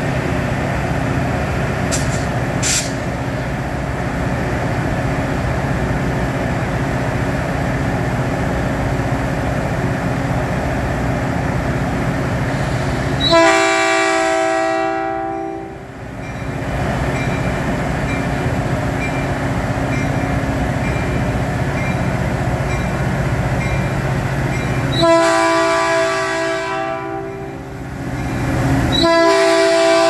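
Caltrain EMD F40PH diesel locomotive running steadily as it rolls in, then sounding its multi-tone horn in blasts of about two seconds: one about halfway through, another near the end, and a third starting just before the end as the locomotive passes close by.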